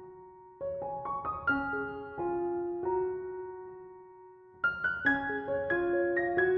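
Background music: a slow, gentle piano piece, phrases of struck notes that ring out and fade before the next phrase begins.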